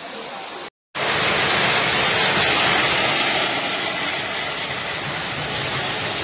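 Steady loud rush of storm water from torrential rain and flooding. It cuts out briefly just before a second in, then comes back louder.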